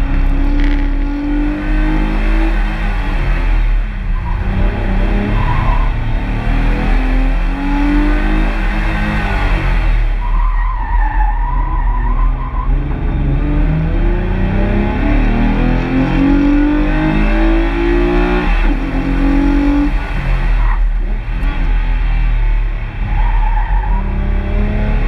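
Mazda MX-3's swapped 2.5-litre KL-DE V6 engine being driven hard through a slalom: revs repeatedly climb and drop as the driver accelerates and lifts between cones. The tyres squeal briefly several times, longest about ten seconds in.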